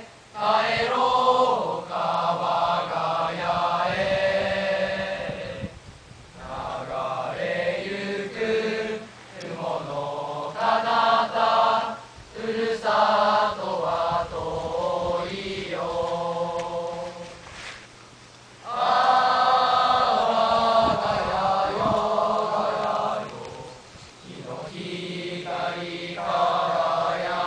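A choir of teenage boys singing a cappella in long phrases, with brief pauses between them.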